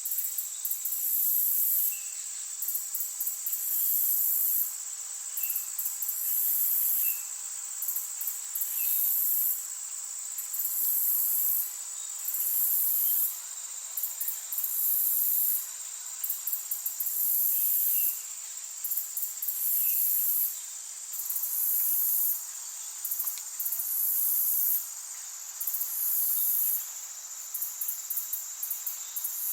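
Insects trilling in very high-pitched bursts of about a second and a half, separated by short stuttering gaps, over a steady high whine.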